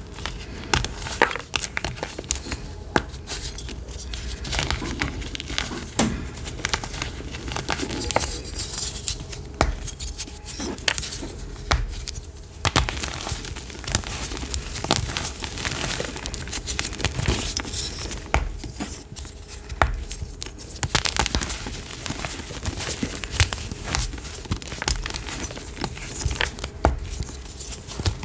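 A crumbly block being crushed by hand in close-up: a dense, irregular run of crisp crunches and crackles.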